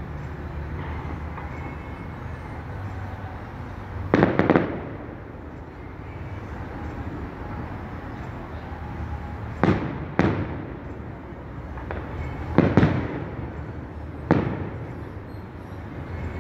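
Aerial firework shells bursting in a series of sharp bangs: a quick cluster about four seconds in, a pair around ten seconds, another pair around thirteen seconds and a single bang just after, over a steady low rumble.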